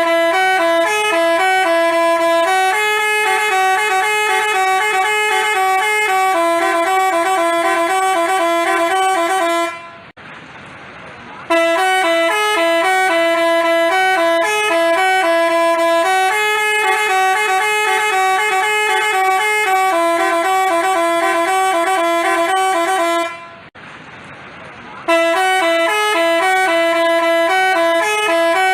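Telolet basuri bus horn playing a melody of held and stepping notes. About ten seconds in, and again about twenty-three seconds in, it stops for a second and a half.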